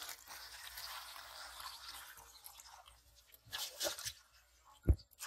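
Caught fish thrashing in a metal pot of water: wet splashing and sloshing for about three seconds, then a few short splashes, and one sharp thump near the end.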